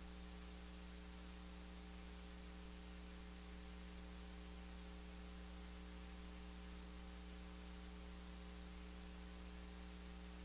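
Faint steady electrical hum with a light hiss underneath; it does not change.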